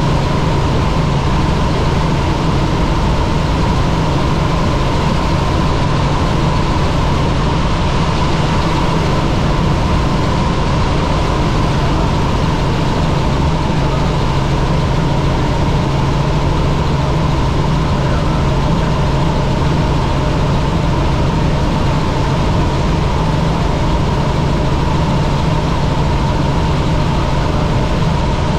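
Helicopter in flight: a loud, steady drone of engine and rotor with a constant whine over it, unchanging throughout.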